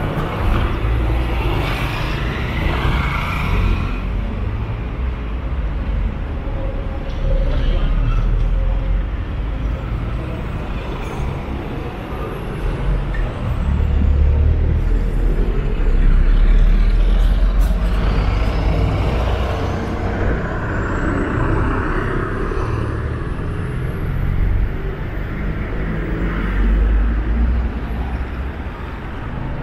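Town street traffic: motor vehicles passing, with a steady low rumble that swells as the nearer ones go by.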